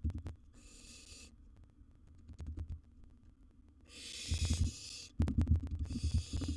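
Barn owl nestling giving harsh hissing begging calls, several hisses each under a second long. Underneath are knocks, scratching and a low rumble from movement in the nest box.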